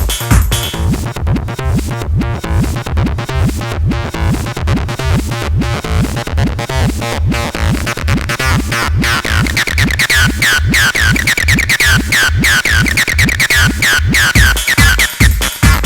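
Live acid techno played on drum machines, samplers and synths: a steady drum-machine kick pulse under a synth line, with a bright resonant synth pattern of quick falling notes coming in from about eight seconds in and dropping away near the end.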